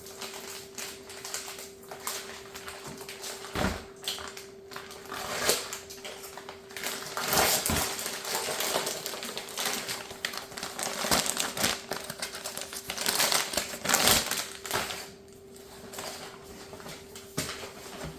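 Plastic packaging crinkling and rustling as a parcel is opened by hand, with irregular clicks and a few sharper knocks of items being handled.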